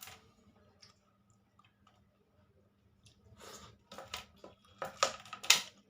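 Close-up eating sounds: a few faint clicks, then from about three seconds in a quickening run of sharp wet smacks and clicks that are loudest near the end.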